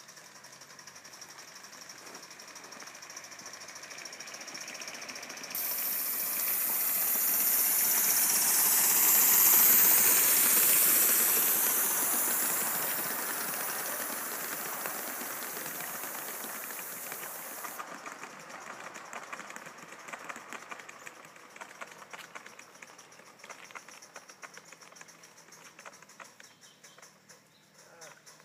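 Live-steam model locomotive running past on the garden track, its running noise growing louder and then fading away. A loud steam hiss cuts in suddenly about six seconds in and stops just as suddenly near eighteen seconds.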